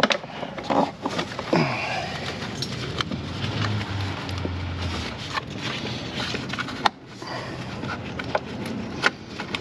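Scattered clicks and knocks of hands and parts while a battery cable is worked through the engine bay, over steady background noise.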